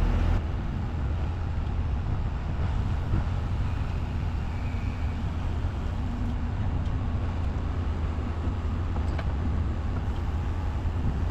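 Heavy diesel engine running steadily, a low, even rumble with no change in speed.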